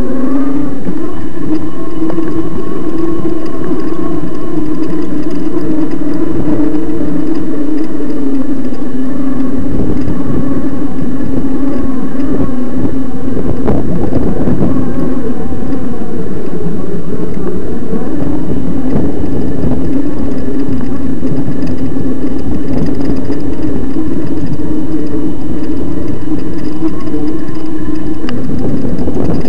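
Electric mountain bike's motor whining steadily at about quarter power, its pitch sagging and picking up again a few times with speed, over a loud, rough rumble with knocks from the bumpy dirt trail.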